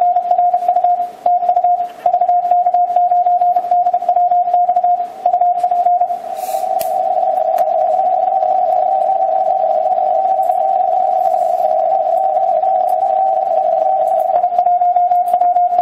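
Morse code heard from an Icom HF transceiver in CW mode on the 15-metre band: a fast keyed tone at one pitch. From about six seconds in, several signals on nearly the same pitch overlap into a continuous jumble, and a single signal comes back near the end.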